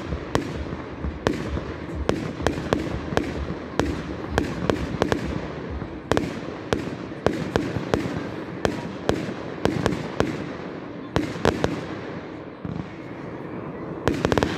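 Aerial fireworks display: shells bursting in an irregular series of sharp bangs, about two a second, easing off about twelve seconds in before a quick cluster of reports near the end.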